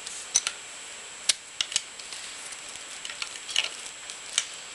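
Irregular sharp metallic clicks and ticks of hand tools against the shift detent arm, its spring and the aluminium engine case of a 2-stroke dirt bike, as the detent is slowly levered off with light pressure.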